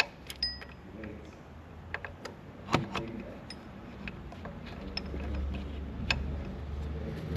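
Scattered metallic clicks and clinks of hand tools working on the water pump bolts, with a few sharper knocks, over a low steady hum.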